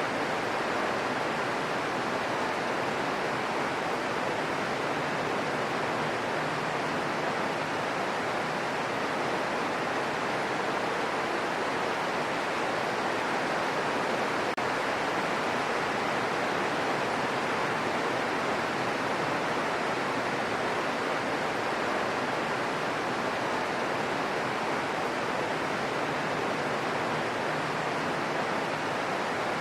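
Steady rain falling in a forest: an even hiss with no individual drops or changes standing out.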